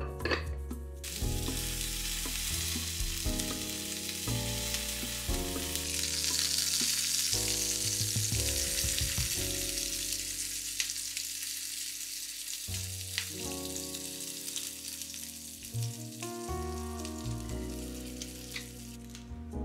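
Food frying in a pan, a steady sizzle that comes in about a second in, swells through the middle and stops near the end, over soft background music.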